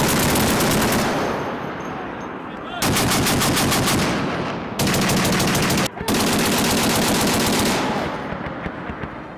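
M2 Browning .50-caliber heavy machine gun firing in bursts: one burst cutting off about a second in, then three more at roughly 3, 5 and 6 seconds, the last two almost back to back. Each burst is a fast string of heavy shots, with a rolling echo fading after it.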